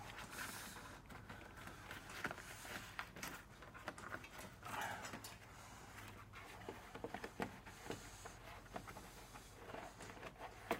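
Faint scraping, rustling and small clicks of a plastic air duct being handled and worked loose at the front of a pickup truck, over a low steady hum.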